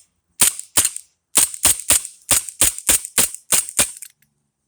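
CO2-powered airsoft pistol fired about eleven times in quick succession, roughly three sharp cracks a second, until the shots stop near the end.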